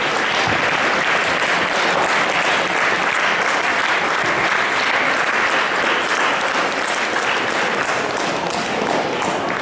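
Crowd of schoolchildren applauding: dense, steady hand-clapping that eases slightly near the end.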